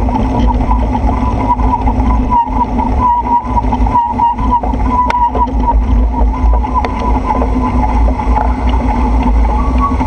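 Loud, steady riding noise on a wet road: a low rumble of wind on the microphone and tyre and traffic noise, with a wavering whine running through it.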